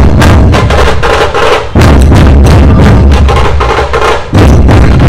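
Dhol-tasha troupe playing loudly: deep, booming dhol beats under rapid, sharp tasha strokes, with a split-second break in the rhythm twice.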